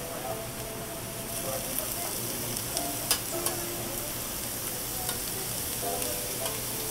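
Thin, fatty slices of meat sizzling on a slotted metal Korean barbecue tabletop grill as they cook, a steady hiss. The tongs that turn the meat click against the grill plate now and then, most sharply about three seconds in.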